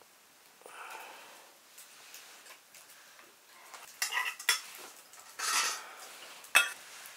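Metal dishes and utensils clinking and scraping in a kitchen: a few sharp clinks, one brief scrape, and a loud clink near the end.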